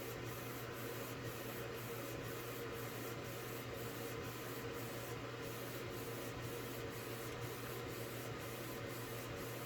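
Steady faint hiss with a constant low hum: background room noise, no distinct events.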